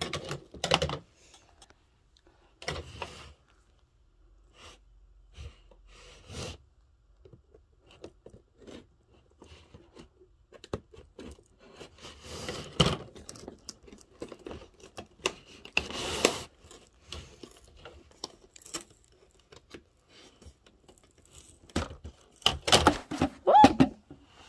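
A cardboard doll box being worked open by hand: irregular scrapes, rustles, small taps and some tearing as the paperboard flaps and tabs are pried loose, with a few louder bursts of handling and the busiest stretch near the end.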